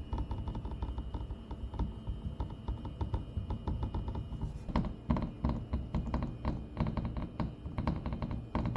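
Fast, irregular rattling and clicking from a Tesla's front air intake cover under the hood, the kind of noise that seems to come from the dashboard on uneven roads. The clicks grow louder about halfway through. The cause is the cover's retaining clips, which have a small gap that lets them rattle.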